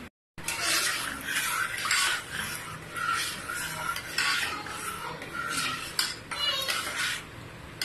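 A steel spoon stirring sago in water in an aluminium pressure cooker pot, in repeated irregular scraping strokes against the pot's bottom and sides. The stirring keeps the simmering sago from sticking to the bottom. The sound starts about half a second in.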